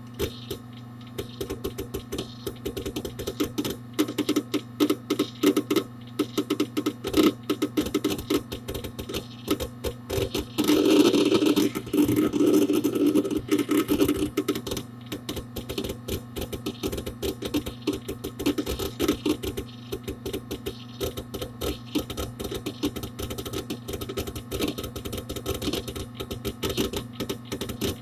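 Hard disk drive inside a Dell Dimension 4700 desktop computer clicking and chattering rapidly and irregularly as its heads seek during disk activity, over a steady low hum from the running machine. The chattering grows denser and louder for a few seconds around the middle.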